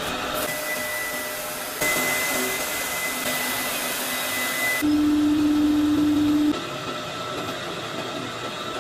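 Factory machinery running steadily, a loud hum and hiss with a few steady whining tones. It changes abruptly about two, five and six and a half seconds in, as the sound jumps from one machine to the next.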